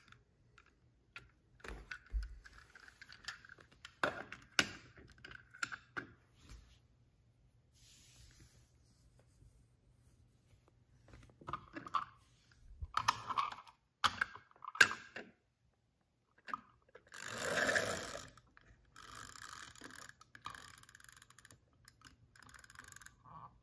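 Scattered faint clicks and taps of small plastic die-cast toy cars being handled and set down on a hardwood floor, with a short rustle about 17 seconds in.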